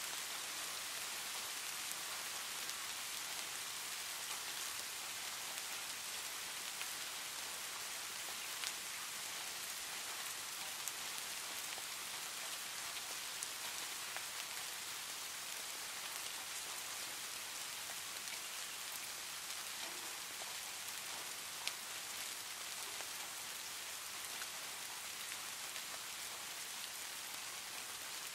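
Steady rain falling, an even hiss with a few brief ticks scattered through it.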